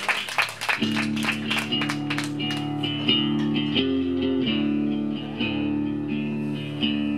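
Audience clapping dies away in the first second, then a rock band's electric guitar and bass start the song, sustained chords that change about once or twice a second.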